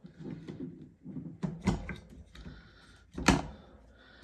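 Handling noise from a repeating crossbow being assembled: the plastic and metal stock and limb assembly knocking and clicking as they are pushed together. There are a few light clicks about one and a half to two seconds in, and a sharper knock about three seconds in.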